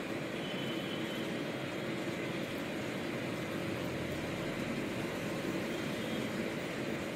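Steady background noise: an even hiss with a faint constant hum, unchanging throughout.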